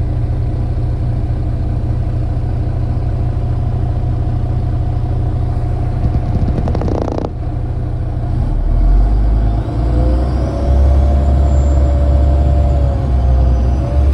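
MAZ 203 city bus engine idling with a steady hum, a short clattering hiss about halfway through, then the bus pulls away: the engine grows louder and a whine rises and falls with it.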